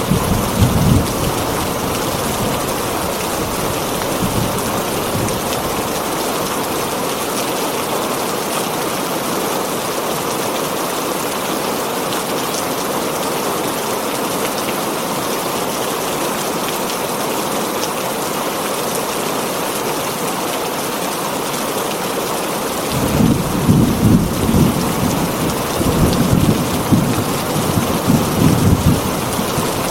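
Heavy rain beating steadily on a tin roof. Thunder rumbles low in a brief surge at the start and again, in rolling waves, through the last part.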